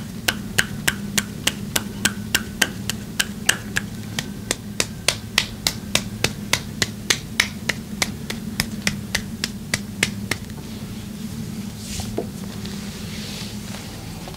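Massage hands striking in a quick, even percussive rhythm, about three or four sharp slaps a second, stopping about ten seconds in.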